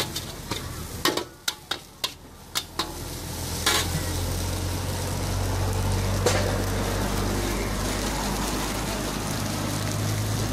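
A metal spatula scrapes and clanks against a steel wok in quick strokes during stir-frying. From about three and a half seconds in, a steady sizzle sets in over a low hum, broken by an occasional single clank.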